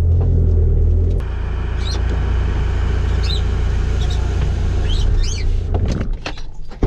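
Engine of a SAIC Maxus van-based motorhome running at low speed as it is driven slowly. A few short high chirps come through in the middle. The engine sound fades near the end, followed by a sharp click.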